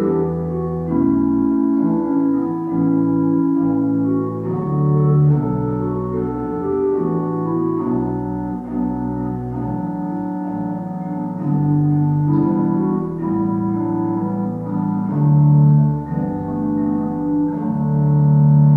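Organ music: slow, held chords that change about every second.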